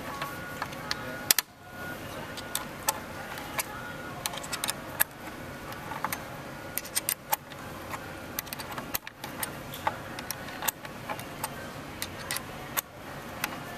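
Irregular small metallic clicks and clinks from a quarter-inch wrench turning a T20 bit and being re-seated, loosening the screws that hold a bottle filler's nozzle.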